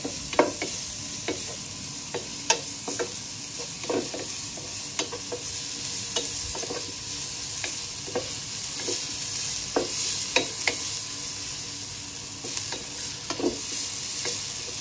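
Sliced shallots and garlic cloves sizzling in oil in a non-stick wok while a wooden spatula stirs them, knocking and scraping against the pan at irregular intervals. The aromatics are being fried until golden.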